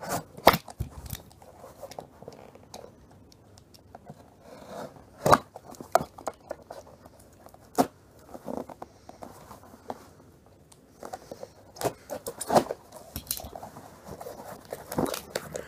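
A cardboard mailing box being cut and opened by hand: a utility knife slitting the packing tape, then the flaps pried and the cardboard handled, in scattered sharp clicks, scrapes and rustles.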